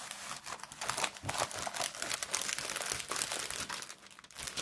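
A diamond painting canvas, covered in clear plastic film, crinkling and crackling as it is handled and rolled up around a tube by hand. The crackling is dense and eases off near the end.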